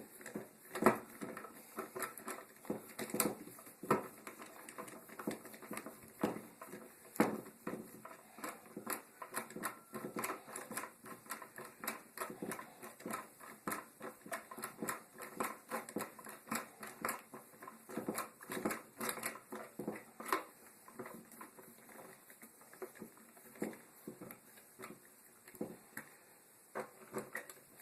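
Screwdriver driving an electrical outlet's mounting screws into the wall box: a run of irregular small clicks and scrapes of the tool turning in the screw heads, several a second.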